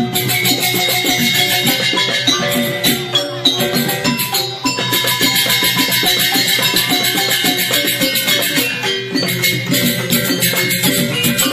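Joged bumbung gamelan playing: bamboo xylophones (grantang) strike fast, dense interlocking patterns over percussion, at a steady loud level.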